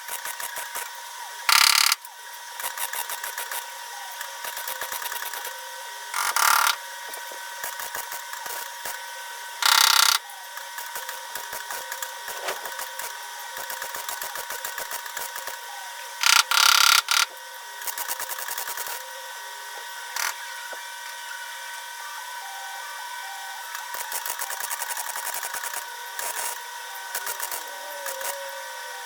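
MIG welder crackling in short runs of stitch or tack welds on the steel of a Mk2 Ford Escort's A-pillar, with a few louder hissing blasts of about a second each.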